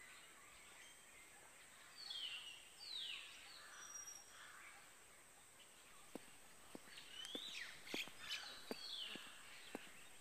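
Birds chirping, with several quick falling chirps, over quiet outdoor ambience. From about six seconds in, a man's footsteps on the ground, roughly one step every half second or so, mixed in with more chirps.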